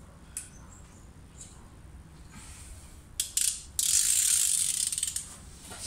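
Socket ratchet on a fine-spline head-bolt socket, clicking as it is swung back and forth while the cylinder head bolts are loosened: a few faint ticks, two sharp clicks about three seconds in, then a run of rapid ratcheting for over a second.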